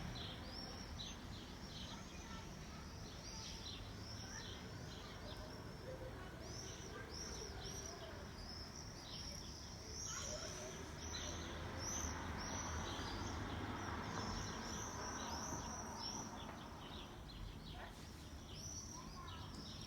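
Songbirds chirping: a fast, continuous string of short, high chirps repeated several times a second. Underneath is a steady background of outdoor noise with a low rumble, which swells for a few seconds in the middle.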